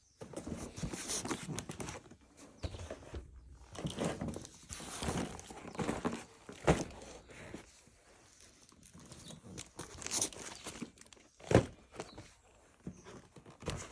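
Hands handling toy packaging: irregular rustling and handling noise, broken by two sharp knocks, the louder one near the end.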